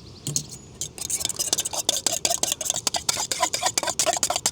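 Eggs being beaten with a fork in a metal tin: quick, repeated clicking strokes of metal on metal, several a second, starting about a second in.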